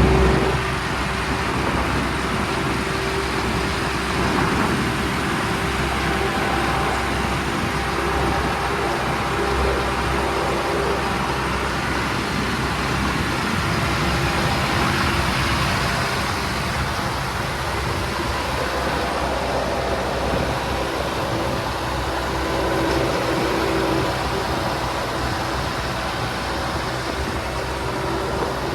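Diesel engine of heavy earthmoving machinery running steadily, with only small swells in level.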